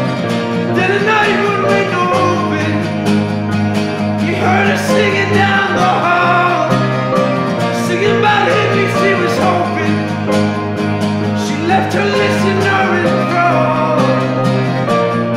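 Music: acoustic guitar and piano playing a slow instrumental passage, with sustained chords and a higher wavering melody line over them.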